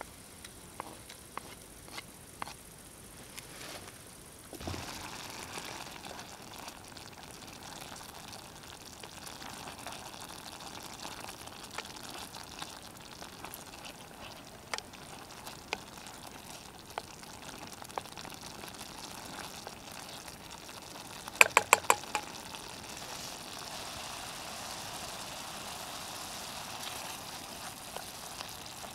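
Chopped tomatoes dropping into a hot steel frying pan about five seconds in, then a steady sizzling and bubbling as they cook while a wooden spoon stirs them, with scattered light clicks of the spoon against the pan. A little past the middle comes a quick run of about five sharp knocks, the loudest sound.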